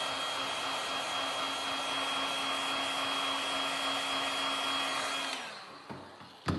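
Electric heat gun blowing steadily with a constant motor whine, then switched off about five seconds in, its fan winding down. A single click near the end.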